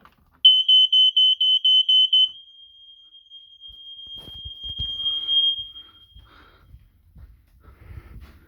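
Aico interlinked fire alarm system sounding on test: a loud, high-pitched beep pulsing about five times a second for nearly two seconds, then a fainter steady tone at the same pitch that carries on for about four seconds, swelling before it stops.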